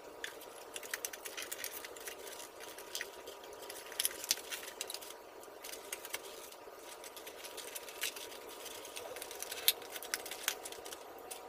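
Light, irregular clicks, taps and rustles of hands handling and pressing together the pieces of a 3D puzzle model, over a faint steady hum.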